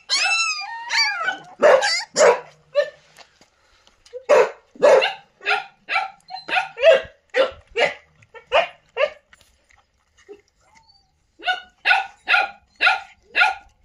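A dog barking repeatedly, about two barks a second, in two runs with a pause of a couple of seconds between them. A few whining cries that rise and fall in pitch come at the very start.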